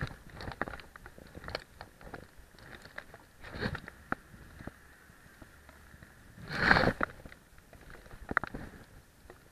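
Scattered crunching and clicking handling noise, with two louder rustling bursts about three and a half and seven seconds in.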